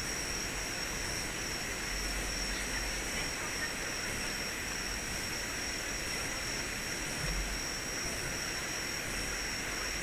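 Steady outdoor ambient noise, an even hiss-like wash with a constant high-pitched whine running through it and no distinct events.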